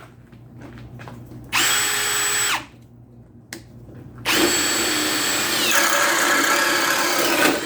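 Ryobi One+ HP brushless cordless hammer drill, on a 6 Ah battery, driving a 1-1/8 inch spade bit into wood: a short burst of the motor whining at full speed, then a longer run that drops in pitch partway through as the bit bites in and the drill comes under load. It keeps turning through the cut, and the 6 Ah battery handles it with no problem.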